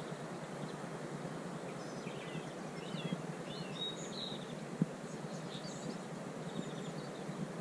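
Small birds chirping and trilling in short phrases through the middle, over a steady low rushing background.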